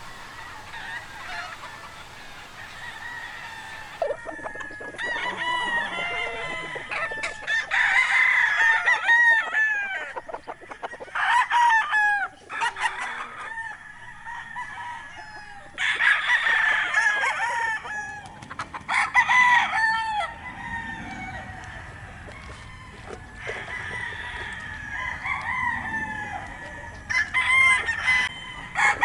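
Many gamecock roosters crowing over one another, call after call, with clucking in between. The crowing starts about four seconds in after a quieter stretch of murmuring fowl.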